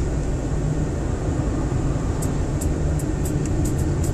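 Road and engine noise heard inside a moving car's cabin: a steady low rumble. From about two seconds in, light irregular clicking, several a second, joins it.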